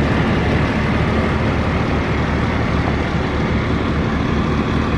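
Steady loud rumble and hiss of a heavy vehicle engine, heard over an open fire-department radio channel.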